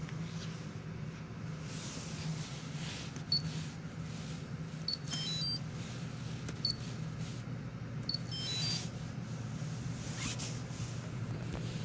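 Touchscreen control panel of a JeioTech ISF shaker incubator beeping as its keys are pressed: a handful of short single high beeps and two brief multi-tone chirps, over a steady low hum.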